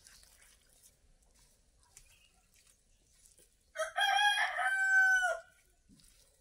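A rooster crows once, about four seconds in: a single loud call lasting about a second and a half, held at a steady pitch and dropping at the end.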